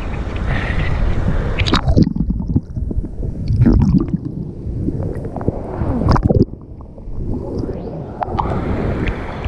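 Water sloshing and gurgling over a camera held at the surface of a cold river pool. It dips under repeatedly, so the sound turns muffled and bubbly, with several splashes. A small weir's falling water rushes steadily behind at first.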